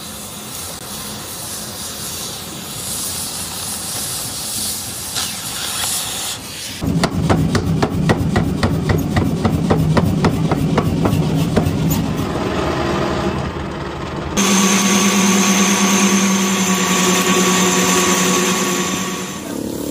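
Three metalworking sounds in turn. First an oxy-fuel cutting torch hisses steadily as it cuts thick steel plate. About seven seconds in, a power hammer takes over with a rapid run of blows on a red-hot steel billet, and from about halfway a lathe turns a steel bar with a steady whine of several tones until it stops just before the end.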